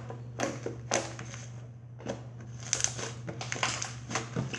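Fluffy slime made from shaving cream and glue being squeezed and poked by hand, giving irregular crunchy crackles and pops over a steady low hum.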